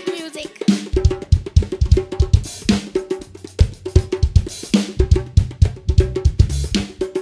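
Live highlife band playing a steady groove, led by a drum kit with kick drum, snare and cymbals, over low bass notes and repeating mid-range instrument notes.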